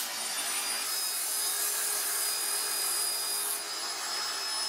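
Electric disc sander running with a razor handle scale pressed against its spinning sanding disc: a steady, gritty grinding over a faint steady motor whine. The grinding is sharper and brighter from about a second in until past the middle.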